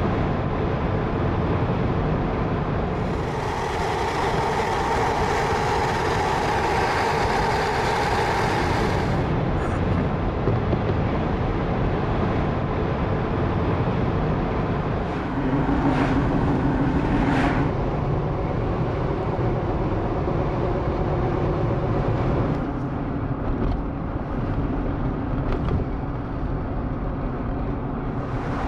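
Road and tyre noise inside a moving vehicle at highway speed, a continuous rumble with steady hums whose pitch changes a few times as the road surface changes.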